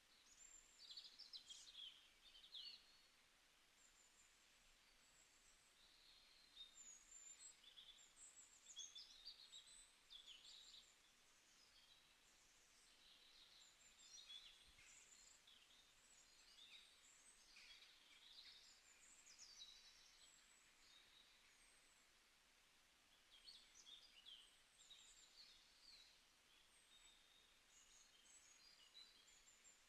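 Faint birds chirping over a low background hiss, with short high chirps coming and going throughout.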